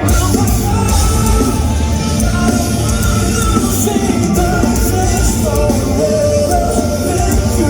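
Rock band playing live in a concert hall, loud. The full band, with heavy bass and drums, crashes in right at the start.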